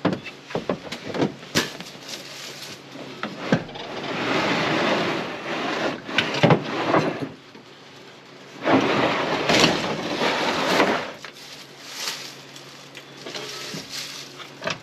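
Turbo 350 automatic transmission being handled and dragged across a ribbed pickup bed liner: a few sharp clunks and knocks, then two long scraping slides, each a few seconds long.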